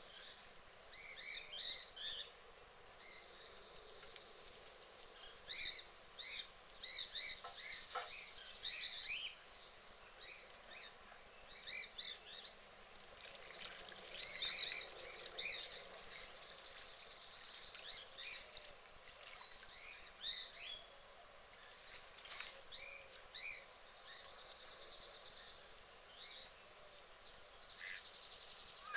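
Small birds chirping: many short, high chirps in quick clusters.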